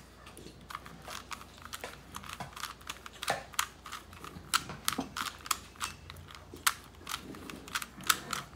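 A Rubik's cube's plastic layers clicking as it is twisted quickly, move after move, in a fast irregular run of clicks as a memorized solving sequence is worked through.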